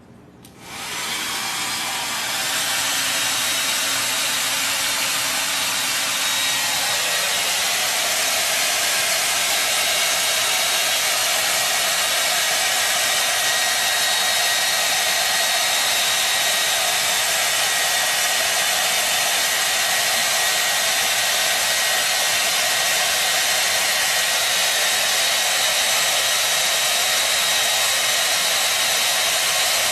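Hair dryer switched on about half a second in, then running steadily with a rush of blown air and a thin high whine.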